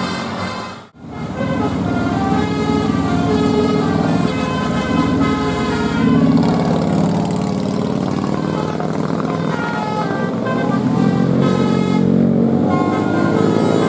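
Indonesian bus 'telolet basuri' multi-tone musical horn playing a quick tune of changing notes over a steady low drone. It breaks off briefly about a second in, then starts again.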